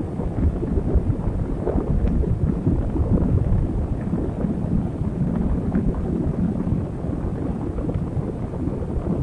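Sandstorm wind buffeting the microphone: a loud, steady low rumble that swells and eases with the gusts.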